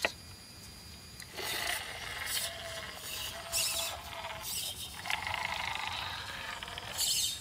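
Electric drive motor and gearbox of a radio-controlled Unimog model truck whining as it drives over dirt, in two spells: one starting about a second in, the other about five seconds in. A sharp click comes at the very start.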